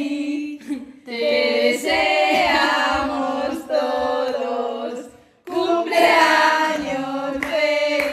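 Several high voices singing a melody together, in phrases with brief pauses and a short break about two-thirds of the way through.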